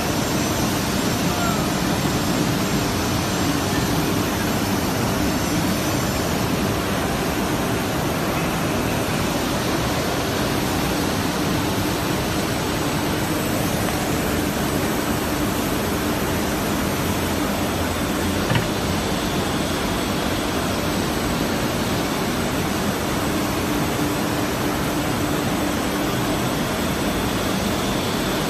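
Brush sanding machine running: a steady, even rushing noise with a faint low hum, and one short click about eighteen seconds in.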